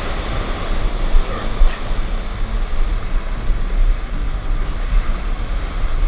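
Rough ocean surf, waves breaking and washing, with gusty wind rumbling on the microphone.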